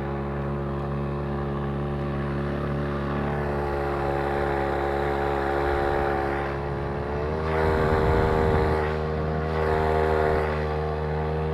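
Homemade outboard motor powered by a Champion T516 two-stroke trimmer engine, running steadily under load on the water. About seven seconds in, it revs up to a higher pitch and gets louder.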